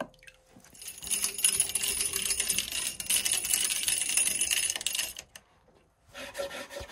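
Rattle reel's spool turning with a rapid, dense clicking rattle as fishing line is pulled by hand from an ice hole, lasting about four seconds; a short burst of similar rattling comes near the end.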